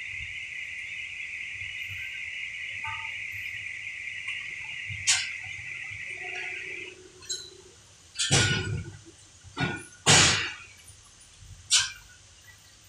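Crane chain and coiled rebar being rigged on a flatbed truck: a series of sudden metal clanks, the loudest two about eight and ten seconds in. A steady high hiss runs underneath and cuts off about seven seconds in.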